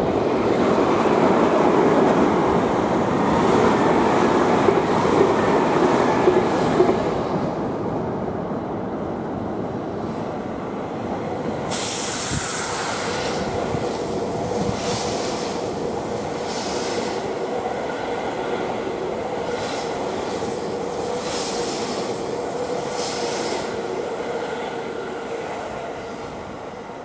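JR Central 315 series electric train running past close by: a dense rumble of wheels on rails, loudest over the first several seconds. About twelve seconds in the sound changes sharply to a steadier run with a faint steady hum and bright clacks every second or two as the cars pass.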